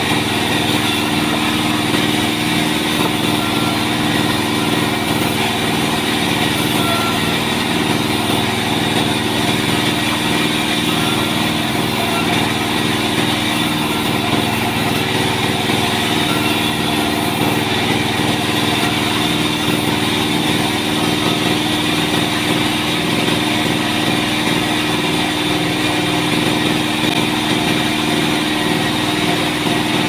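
Large sawmill band saw and its drive running steadily with a constant hum, its blade turning without a clear cut.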